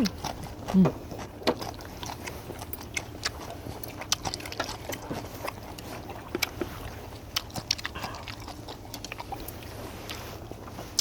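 Close-up chewing of charcoal-grilled beef: many small, irregular wet mouth clicks and smacks, with a short hummed 'mm' about a second in.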